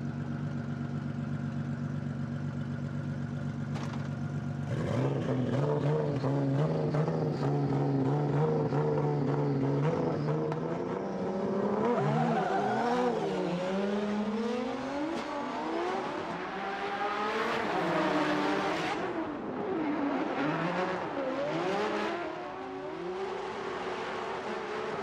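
Two high-powered drift cars, a Flanker F with a VR38DETT twin-turbo V6 and a Toyota GR Supra with a 2JZ-GTE straight-six. At first the engines run steadily, then about five seconds in they get louder and are held at high revs at the start line. From about twelve seconds on the revs swing up and down through a tandem drift.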